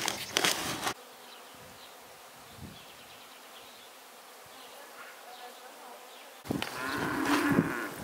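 Hands kneading crumbly dough in a plastic bowl, a crackling squish, for about a second. Quiet outdoor ambience follows for several seconds. About six and a half seconds in, loud handling noise returns together with an insect buzzing close by.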